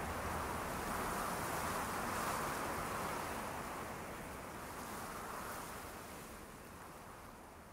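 Wind blowing in slow, even swells, gradually fading out toward the end.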